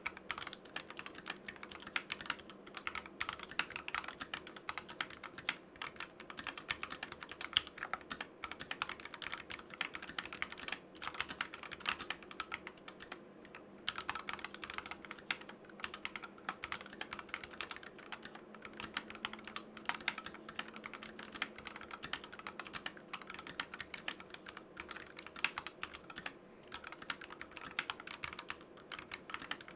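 Steady, continuous typing on a mechanical keyboard fitted with Tangerine linear switches, a fast run of key strokes with short lulls about halfway and again near the end.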